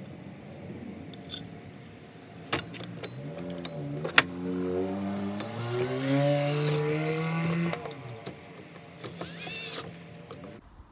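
Cordless drill driving a screw into a truck rack's aluminium upright and base bracket. The motor rises in pitch as it speeds up and runs for several seconds, with a sharp click about four seconds in, then a shorter run near the end.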